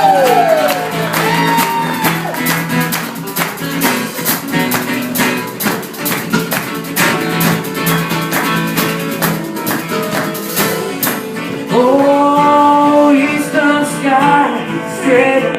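Live band playing with fast, steady strummed acoustic guitar through an instrumental passage; sung held notes close the previous line at the start, and the singing comes back about twelve seconds in.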